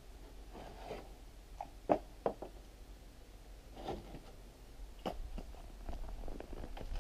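Split firewood pieces knocking together as they are picked up off a sled and gathered into an armload: a handful of sharp wooden knocks, the loudest about two seconds in.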